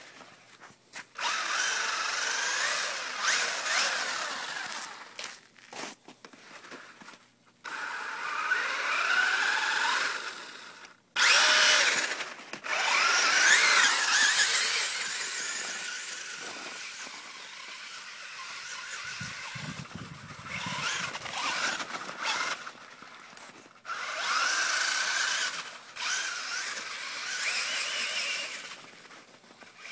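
Electric RC truck on a 3S LiPo, its motor and drivetrain whining in a series of throttle bursts with short gaps, the pitch rising and falling as it drives over snow.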